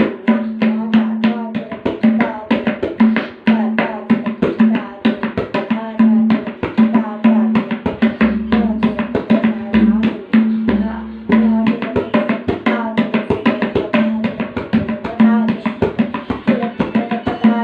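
Tabla played solo in a fast, dense run of strokes, several a second, with the tuned right-hand drum's steady ringing tone sounding again and again under them.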